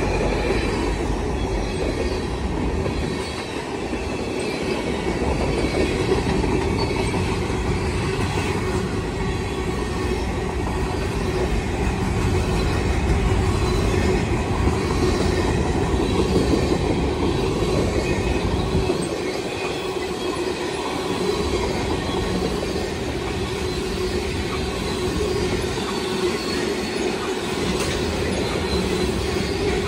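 Freight train's covered hopper and tank cars rolling past on the rails: a steady rumble and clatter of steel wheels, with a steady squealing tone from the wheels running through it.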